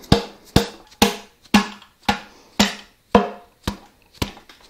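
A mallet knocking on an old wooden hammer handle used as a drift, tapping a piston down through a ring compressor into the bore of a Mini 1275 A+ engine block. About nine sharp wooden knocks, two a second, getting lighter toward the end as the piston goes home.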